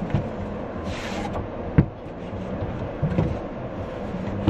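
Cardboard watch box being handled and slid out of its sleeve: a brief sliding hiss about a second in, a sharp knock a little later and a softer knock near three seconds, over a steady rumbling background.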